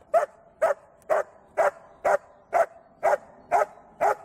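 A black-and-tan shepherd dog barking in a steady rhythm at a protection-training helper, about two barks a second.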